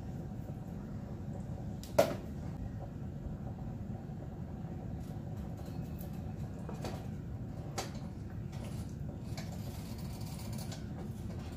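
Metal tin of coconut milk knocked and scraped as it is emptied into a simmering pan: one sharp knock about two seconds in and a few lighter clicks later, over a steady low background noise.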